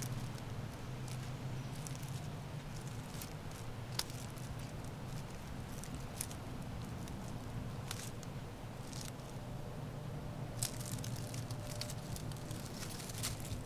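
Outdoor ambience: a steady low hum under scattered light crackles and clicks, a few of them sharper.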